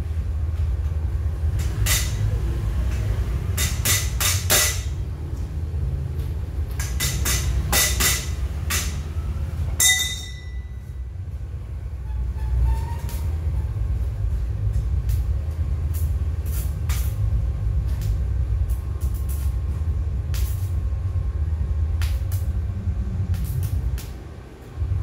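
Metalwork while welding a steel tool shelf: a steady low electrical hum with bursts of sharp metallic clicks and crackles. About ten seconds in comes one loud metal strike that rings briefly.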